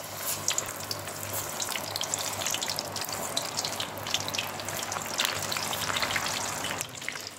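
Batter-coated fish pieces deep-frying in hot oil: a steady sizzle with many small crackles as the pieces are lowered in one by one. This is the first fry, in hot oil over a low flame.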